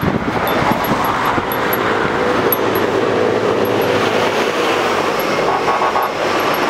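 Road traffic passing close by, a steady noise of motor vehicles, with one vehicle's engine hum standing out through the middle.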